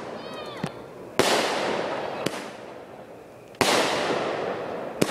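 Aerial fireworks bursting: two loud bangs about two and a half seconds apart, each followed by a crackling hiss that fades over about two seconds. Short sharp pops come in between.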